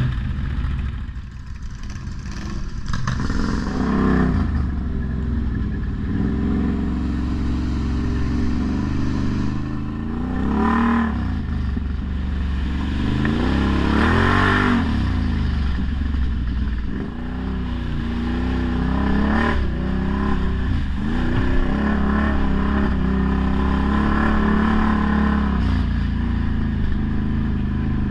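ATV engines running and revving, the pitch rising and falling again and again as the throttle is worked. The strongest revs come about four, eleven and fourteen seconds in.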